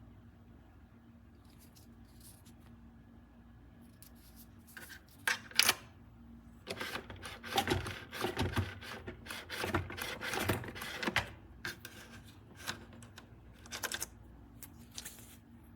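Irregular clicking and clattering of small hard objects being handled, in scattered knocks about five seconds in and a dense run of clatter in the middle, over a faint steady hum.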